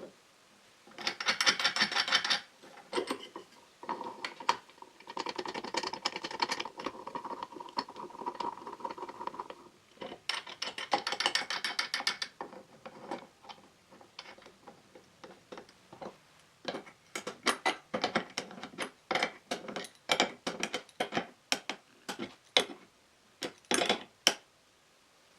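Bolts being tightened by hand to fix a lathe tailstock and wood block to a drill press column. It makes quick runs of ratcheting clicks, with scattered separate clicks and knocks of metal parts near the end.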